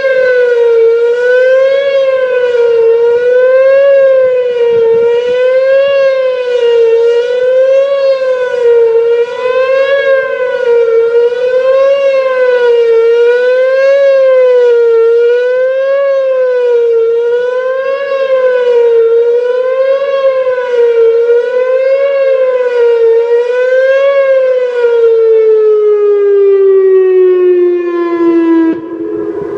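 Whelen WPS-2910 electronic outdoor warning siren sounding the Attack signal: a loud wavering tone that rises and falls about once every two seconds. Near the end the tone stops wavering and winds down, falling steadily in pitch.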